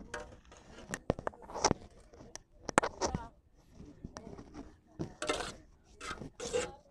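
Sharp clinks and scrapes of steel plates, pots and serving utensils as food is dished out, in irregular short knocks and brief scraping bursts, with faint voices in the background.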